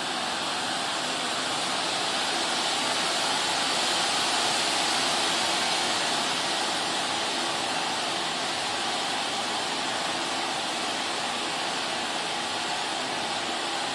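Stage firework fountain (gerb) hissing steadily as it sprays a tall column of sparks, swelling slightly a few seconds in.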